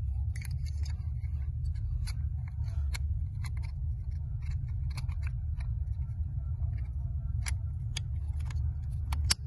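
Scattered small plastic clicks and taps from a car wiring plug being handled and fitted to its connector, over a steady low rumble.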